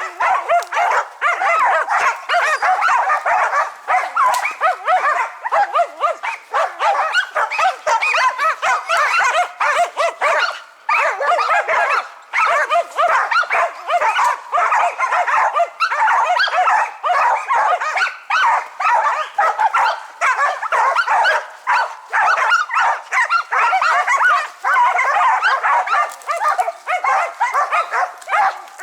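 Several Karelo-Finnish laikas barking without a break, a dense run of overlapping high yapping barks. This is the pack baying at a treed marten.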